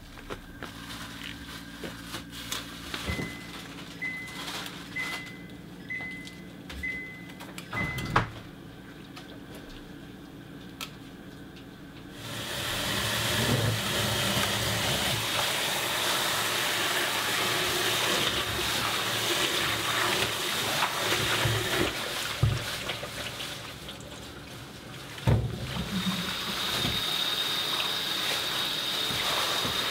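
Kitchen tap running into a bowl in the sink while spinach leaves are rinsed and swished by hand, starting about twelve seconds in. Before the tap opens there is a quieter stretch with small clicks, five short high beeps about a second apart, and a sharp thump.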